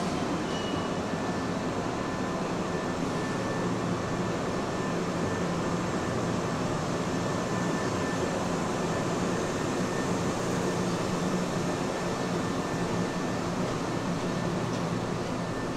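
Steady hum and hiss of an electric train's air-conditioning and auxiliary equipment running, with no change in level.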